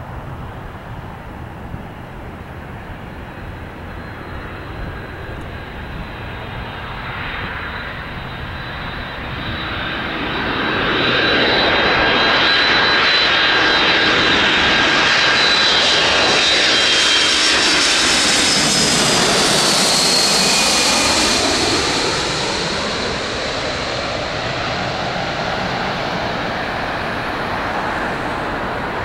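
Airbus A300-600 freighter's two Pratt & Whitney PW4158 turbofan engines on landing approach: the jet grows louder as it comes in and is loudest for about ten seconds as it passes low overhead, with a high whine that drops in pitch. It then fades as it heads away toward the runway.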